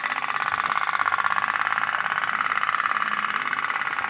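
Toy pop-pop boat, the candle-heated tin steam boat, running with a rapid, even putt-putt.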